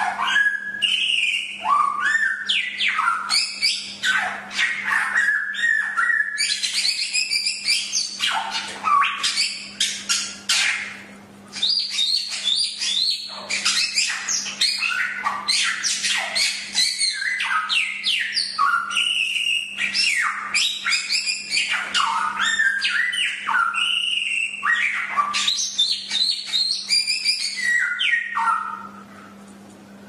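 Samyong (golden whistler) singing a fast, continuous run of whistles, chirps and sliding notes, with short pauses about a third of the way in and near the end.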